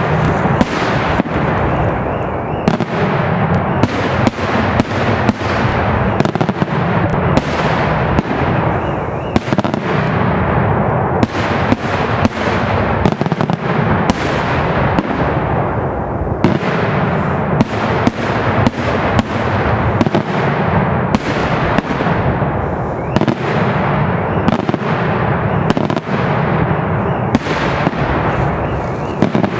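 Daytime fireworks barrage: aerial shells bursting in quick succession, their bangs overlapping into a continuous crackling rattle with no pause.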